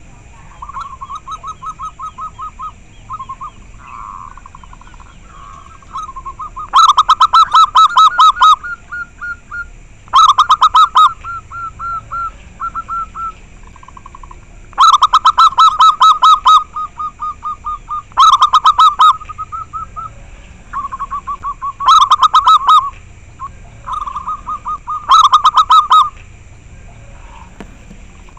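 Zebra doves (perkutut) cooing in rapid staccato phrases of quick repeated notes. Six very loud phrases, loud enough to distort, come every three to four seconds, with quieter cooing phrases in between that sound like other doves answering.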